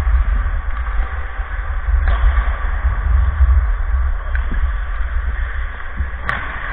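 Heavy rumble of wind and movement on a worn camera's microphone over a steady hiss during hockey play, with a faint knock about two seconds in and a sharper, louder knock near the end.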